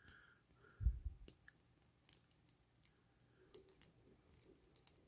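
Faint clicks and light rubbing of small hard plastic parts as a toy blaster is pressed into an action figure's tight plastic hand, with a soft bump just under a second in.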